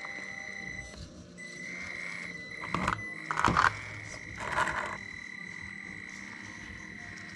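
Traxxas TRX-4M Defender RC crawler's electric drive whining at a steady high pitch as it crawls over rock, the whine wavering about two seconds in. Three short bursts of scraping and scrabbling from the tyres on the rock come between about three and five seconds, the middle one the loudest.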